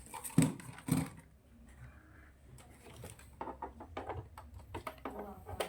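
Two dull knocks about half a second apart near the start, then scattered light clicks and taps.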